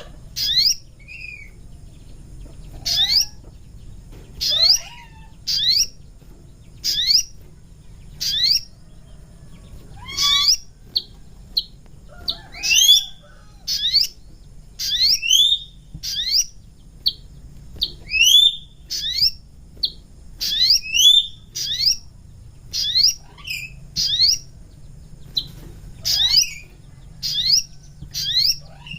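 A North Moluccan sogon bird calling: short, sharp whistled notes that rise in pitch, repeated about once a second and sometimes given in quick pairs. It is a recorded call meant for luring wild sogon to a trap.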